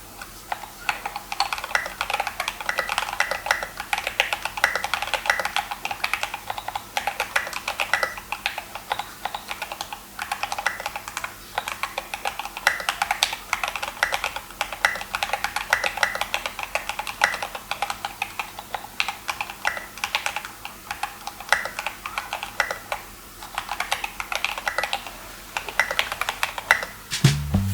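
Think6.5 v2 custom mechanical keyboard, on a solder PCB modded with Millmax/Chillmax sockets, being typed on at a steady pace in a sound test: a continuous run of key clacks.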